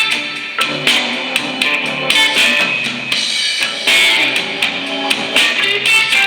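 Background music with guitar and drums, a steady beat throughout.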